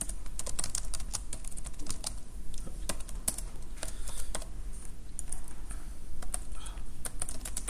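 Typing on a computer keyboard: a quick, irregular run of keystroke clicks over a steady low hum.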